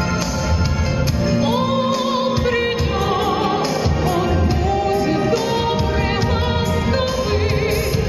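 A woman singing a pop ballad with vibrato over a backing track with a pulsing bass.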